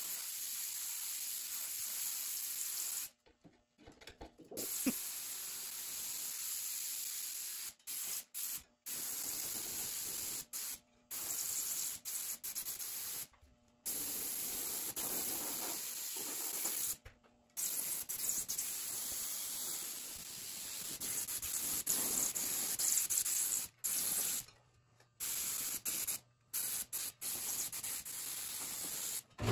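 Compressed-air paint spray gun hissing in repeated bursts of a few seconds each as the trigger is squeezed and released, about a dozen times with short silent gaps between.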